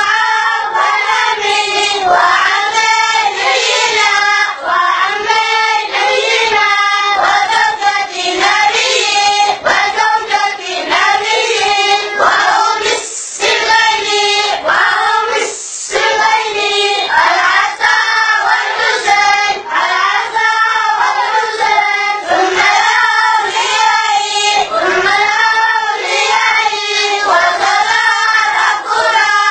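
A group of boys chanting together in unison, a continuous rhythmic group recitation without pause.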